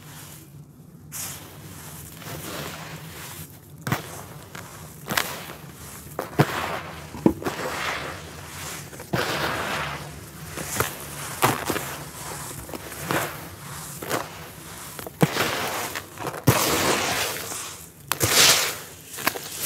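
Red dirt clumps crumbled by hand and let fall back into a tub: grainy, crunchy breaking with sharp little cracks, and sandy hiss each time a handful of grains pours down.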